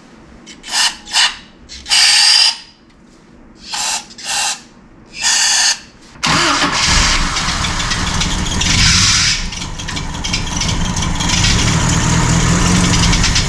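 Aerosol carb cleaner hissed into the carburetor in about six short squirts, then the 1986 Isuzu P'up's four-cylinder gasoline engine is started and keeps running on the sprayed cleaner, which points to a faulty carburetor.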